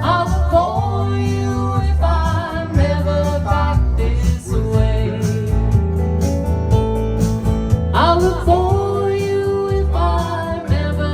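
Country-folk song: a voice singing held, wavering notes over guitar accompaniment and a bass line.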